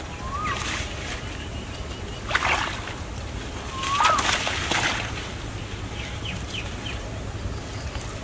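Water splashing and sloshing a few times, about half a second, two and a half and four to five seconds in, as hands work in a shallow pond thick with water hyacinth. A bird chirps twice, short rising-and-falling whistles.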